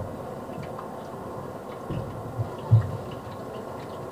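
Three dull low thumps, the last and loudest just under three seconds in, over a steady background hiss.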